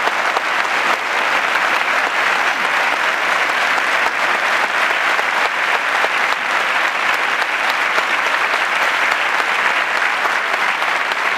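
Football stadium crowd applauding steadily: a dense, even patter of many hands clapping, held as a minute's applause.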